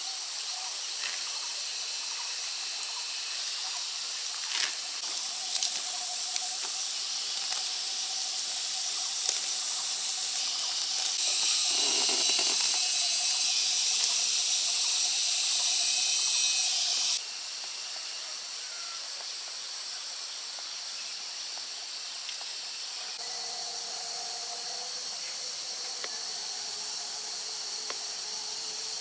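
Steady high-pitched outdoor hiss with a few light clicks. It changes abruptly three times, getting louder about a third of the way in, dropping back past the middle and shifting again near the end.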